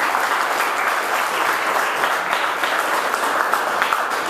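Audience applauding steadily, with single claps starting to stand out near the end.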